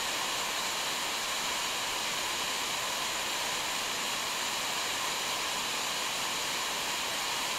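Waterfall rushing steadily: water pouring and splashing over rocks in an even, unbroken rush.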